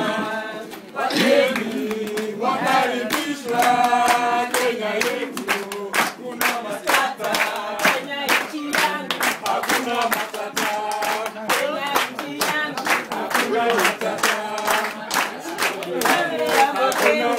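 A group of voices singing together with hand clapping, the claps settling into a steady beat of about two to three a second from about six seconds in.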